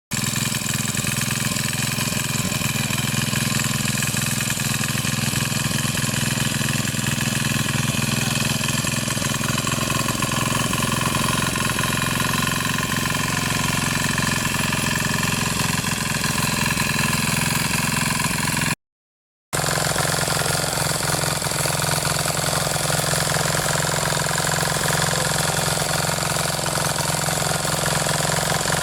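Power tiller engine running steadily while ploughing a field. The sound cuts out completely for under a second about two-thirds of the way through.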